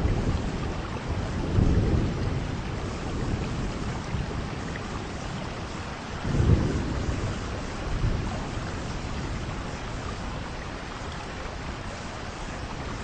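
Heavy rain falling steadily, with low rolling rumbles of thunder swelling about two seconds in and again around six to eight seconds in.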